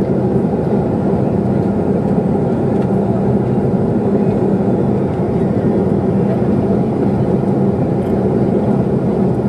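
Jet airliner cabin noise in flight: a low, steady rumble of engines and airflow with a faint hum.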